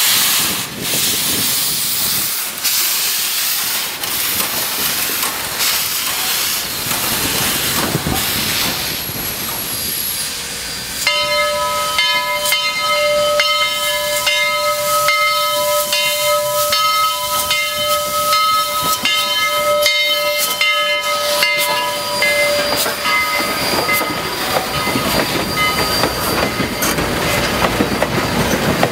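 Southern Railway 4501, a 2-8-0 steam locomotive, passing with a loud steam hiss and clicking of wheels on rail joints. About eleven seconds in, its steam whistle blows one long steady blast of several notes together, lasting about ten seconds. After that the passenger coaches roll by, their wheels clacking over the rails.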